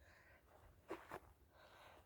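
Faint breathing close to the microphone, a soft breath about every second and a half, with two short clicks about a second in.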